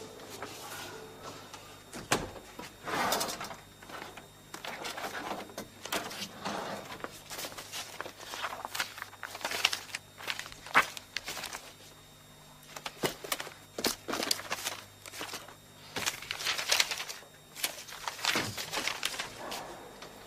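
Paper rustling and pages being leafed through in a file, with scattered clicks and knocks as things are handled on a desk, over a low steady hum.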